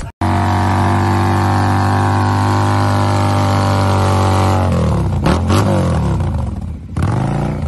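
Motorcycle engine held at steady high revs, then revved down and up with the pitch swinging. Two sharp pops come near the end, about five and seven seconds in, fitting the exhaust flames seen during the burnout.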